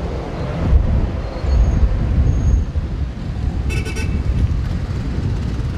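Roadside traffic noise: a steady low rumble of passing vehicles. About four seconds in comes a short, high-pitched toot.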